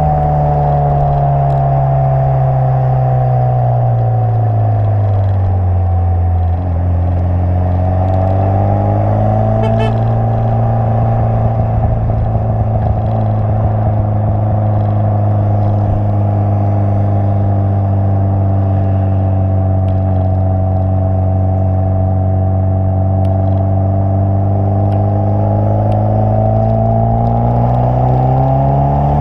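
Exhaust of a Renault Twingo GT with a swapped-in F4RT 2.0-litre turbo four-cylinder, driving. Engine speed drops over the first few seconds, picks up slightly, holds a steady cruise for most of the time, then rises again near the end.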